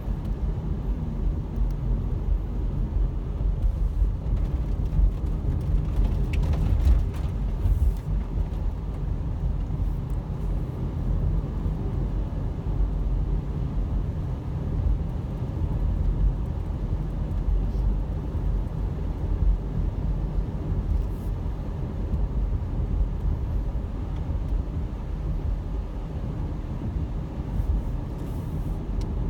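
Steady low rumble of a car driving on a wet road, heard from inside the cabin, with a few faint clicks.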